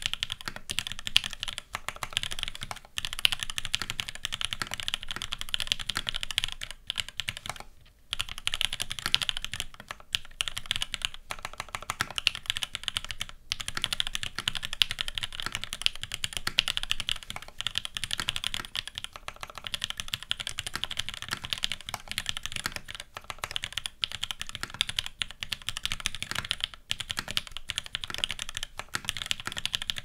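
Continuous typing on a KMG TKL custom mechanical keyboard: a full-aluminium plate in sandwich mount with Gateron X switches lubed with Krytox 205g0, topped with CRP keycaps. The result is a dense, even stream of crisp keystroke clacks, with brief pauses about 3 and 8 seconds in.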